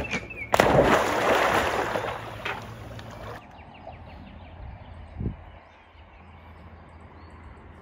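A dog leaping off a dock into a lake: a sudden loud splash about half a second in and churning water for a few seconds, then quieter lapping water as it swims, with a brief thump about five seconds in.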